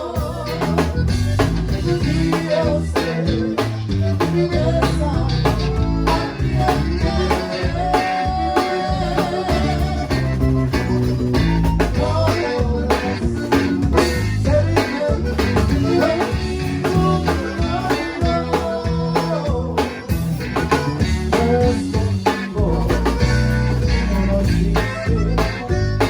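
Live conjunto band playing an instrumental stretch: button accordion melody over bajo sexto, bass and drums, with a steady dance beat.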